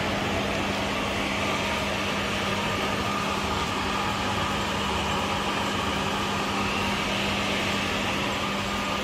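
Steady mechanical hum of a fan or small motor, with a constant low tone under an even whir.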